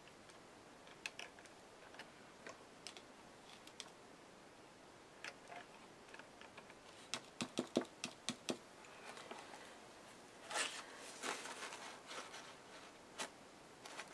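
Faint clicks and taps of a plastic paint squeeze bottle and its cap being handled and set down on a craft table, with a quick run of clicks about halfway through and a scratchy rustle a little later.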